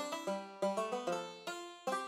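Background music: a light plucked-string instrumental tune, notes picked about four a second, each struck sharply and fading.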